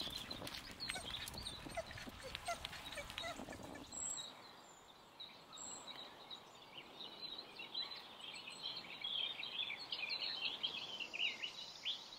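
Bicycle rolling over a gravel path, a rumble with rattling ticks, for about four seconds; then it cuts to quieter woodland birdsong, many small birds chirping.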